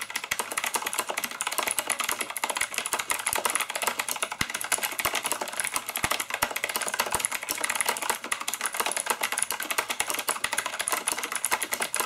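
Continuous fast typing on a Tronsmart TK09R full-size mechanical keyboard with clicky Outemu blue switches: a rapid, unbroken run of sharp key clicks.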